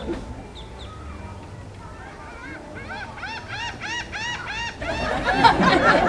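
A gull calling a run of about eight laughing notes, each rising and falling, about four a second, a little before the middle. People's voices follow near the end.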